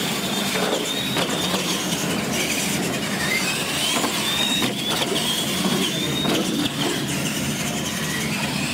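Radio-controlled monster trucks racing, their electric motors and gears whining up and down in pitch with the throttle over a steady hiss.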